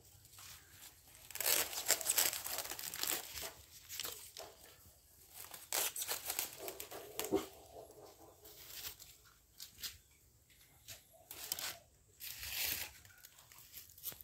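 Dry, papery staghorn fern fronds crackling and rustling as they are handled and cut with a knife, in irregular bursts, loudest about two seconds in.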